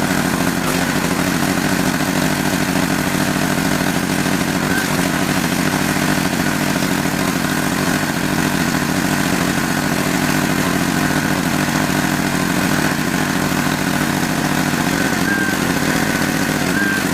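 Pressure washer running steadily under load, its motor and pump keeping a constant pitch while the spray hisses.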